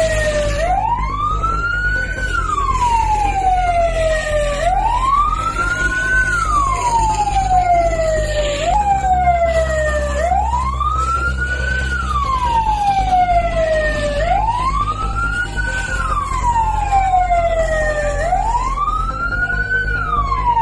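Emergency vehicle siren wailing in slow cycles, each rising for about a second and a half and then falling away more slowly, repeating about every four seconds over a steady low rumble.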